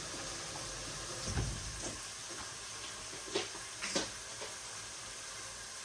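Onions frying in hot oil in a pan, a steady sizzle, with a few light clicks and knocks over it.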